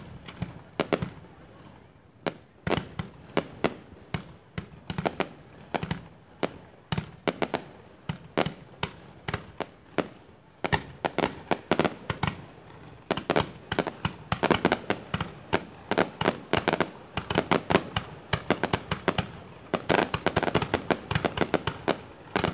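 Fireworks going off in quick succession: many sharp bangs and pops from rockets and aerial bursts, coming faster about halfway through and again near the end.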